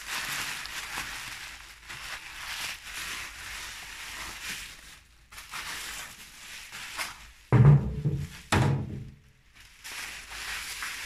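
Plastic bubble wrap and packing tape crinkling and rustling as a wooden Mauser rifle stock is unwrapped. About two-thirds of the way in come two heavy thuds about a second apart, the wooden stock set down on a metal workbench, and the crinkling returns near the end.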